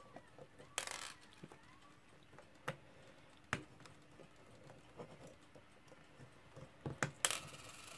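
Faint handling sounds of small metal parts: a few sharp clicks and two short scrapes, one about a second in and one near the end, as small screws are worked out of the back of a Westclox Baby Ben Style 7 alarm clock's metal case.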